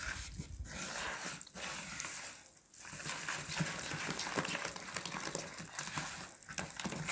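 A hand squishing and rubbing soft butter into cornstarch in a plastic bowl: a continuous rubbing, squelching noise broken by a few brief pauses.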